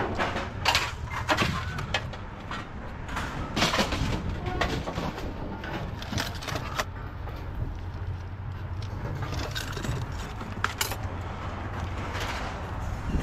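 Scattered clanks and knocks of scrap metal pieces being handled and set down, over a steady low rumble.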